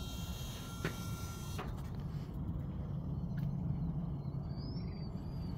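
Hydraulic swing-gate operator's pump running with a steady low hum as the master gate leaf swings closed, with two light clicks in the first two seconds.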